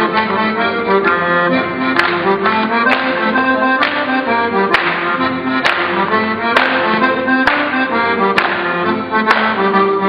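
Accordion playing a lively traditional dance tune in full chords. From about two seconds in, a sharp percussive beat lands roughly once a second.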